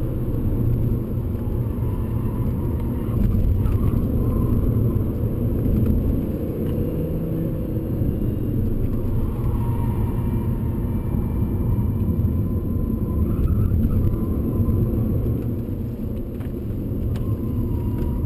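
Alfa Romeo 159 2.4 JTDm five-cylinder turbodiesel heard from inside the cabin at speed: a steady low engine, tyre and road noise that swells a little and eases off as the throttle is worked.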